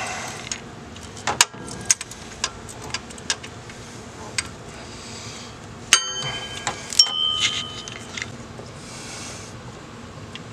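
Ratcheting wrench clicking and clinking against metal as a vacuum-pump mounting bolt is worked loose in a truck's engine bay, with irregular sharp clicks and two louder metallic clanks about six and seven seconds in that ring briefly.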